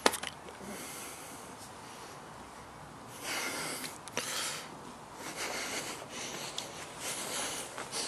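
Close breathing and sniffing at the microphone: a faint steady hiss, then several short, airy breaths about half a second long from about three seconds in.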